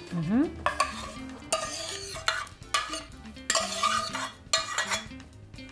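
A metal utensil scraping tomato sauce out of a stainless steel pan into a baking dish, in a series of short scraping strokes.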